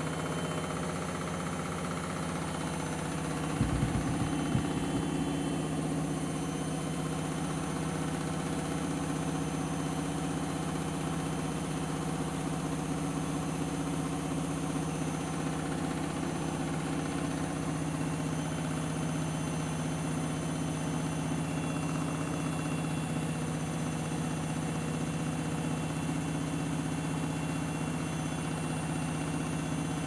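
Candy GrandO Vita front-loading washing machine on its final spin at up to 1200 rpm, a steady motor and drum hum. A short cluster of knocks about four seconds in as the machine shakes.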